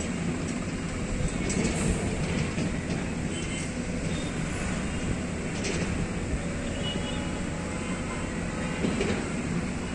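Diesel engine of a loaded tipper truck running steadily at low speed, with no gear changes or revving.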